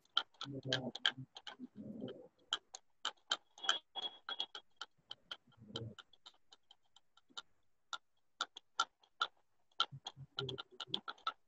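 Rapid, uneven light clicking, several clicks a second with short gaps, mixed with a few brief low muffled sounds.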